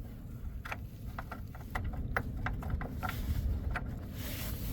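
Scattered light metallic clicks and taps of a battery hold-down bolt being poked around the battery tray while feeling for its threaded hole, over a steady low rumble.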